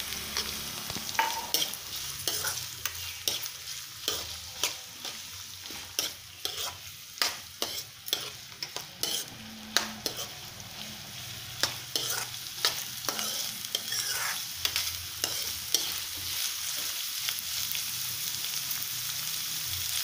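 Chopped onions sizzling steadily in hot oil in a non-stick kadhai, stirred with a steel spoon that clicks and scrapes against the pan many times. The stirring clicks thin out near the end, leaving mostly the sizzle.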